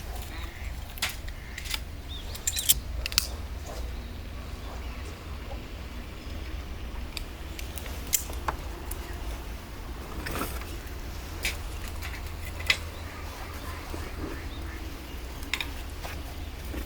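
Irregular sharp clicks and light knocks, about a dozen of them, over a steady low rumble.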